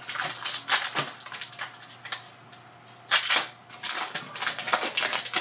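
Foil wrapper of a Clearly Donruss basketball card pack crinkling and crackling as it is opened by hand, in irregular bursts, loudest about three seconds in.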